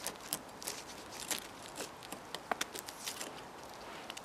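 Bushcraft knife cutting and prising bark off a birch trunk: irregular small cracks, snaps and scrapes as the blade works the bark loose, thinning out about three seconds in.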